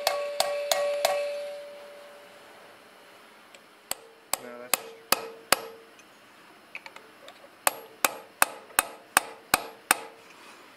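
Hammer driving a cold chisel into the old inner steering-bearing race on a Honda VTX1300's steering stem, to split the race where it was cut with a Dremel. Sharp metal-on-metal blows come about three a second in three runs with short pauses between, and a ringing tone lingers after the runs.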